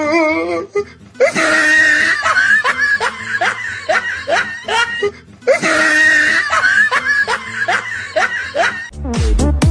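A voice laughing in quick falling peals over background music, the same few-second stretch looped twice. Near the end it cuts to a dance track with a steady heavy beat.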